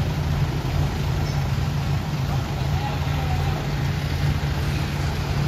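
Heavy diesel engine running steadily, a low even rumble.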